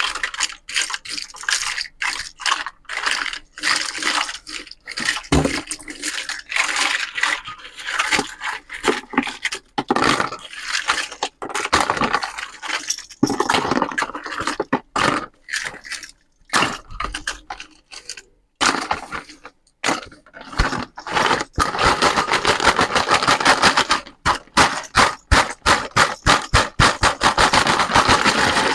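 Irregular scraping and rustling in quick short bursts, coming thick and fast in the last several seconds.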